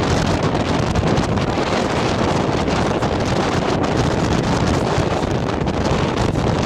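Strong wind buffeting the microphone: a loud, steady low rumble with hiss above it.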